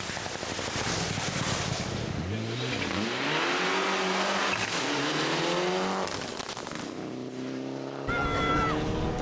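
Rally car engine at high revs, its pitch climbing in steps through gear changes over several seconds, over tyre and road noise. Near the end the engine comes in loud again.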